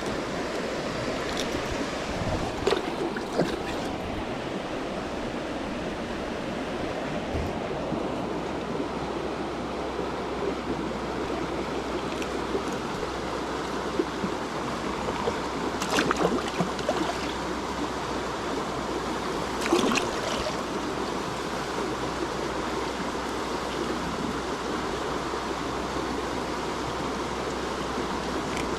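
Stream water flowing steadily. A few brief sharp sounds stand out over it: near the start, about halfway through, and again a few seconds later.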